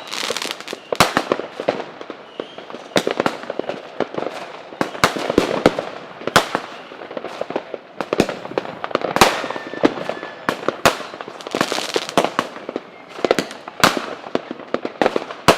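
Fireworks going off in a steady barrage: many sharp bangs at irregular intervals, often several a second, over continuous crackling, with an occasional faint whistle.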